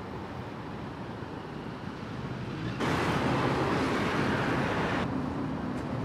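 Steady outdoor urban background noise with a low traffic rumble. It jumps abruptly louder and brighter about three seconds in, then drops back about two seconds later.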